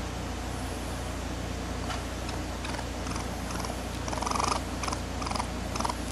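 Baby raccoon making a run of short chittering, purr-like calls, starting about two seconds in and loudest a little after four seconds, over a steady low hum.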